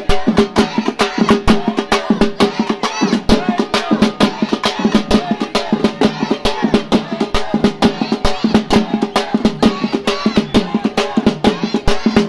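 Procession drum band playing fast, sharp drum strikes, several a second, over a steady held tone.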